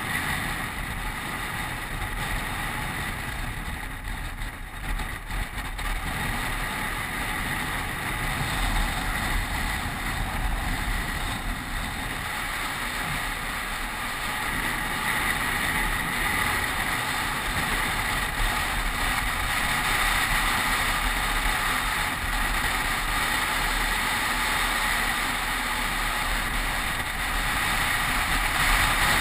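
Wind rushing and buffeting over a helmet-mounted camera's microphone, with tyre noise on tarmac, from a downhill mountain bike descending a paved road at speed. It grows a little louder in the second half.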